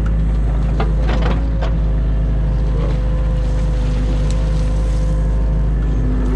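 New Holland Kobelco E 50.2 mini excavator's diesel engine running steadily as the bucket digs silt out of a drainage ditch, with a few sharp knocks about a second in.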